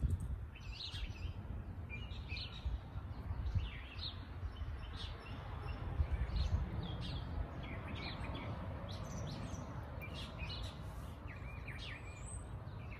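Small songbirds chirping and singing in short, repeated phrases throughout, over a low steady outdoor rumble.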